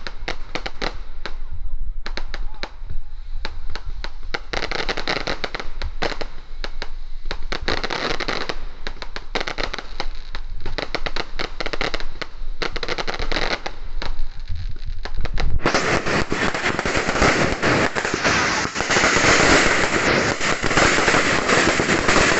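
Firecrackers going off in a rapid, irregular run of bangs and crackles. About fifteen seconds in the sound suddenly becomes a denser, louder, continuous crackling.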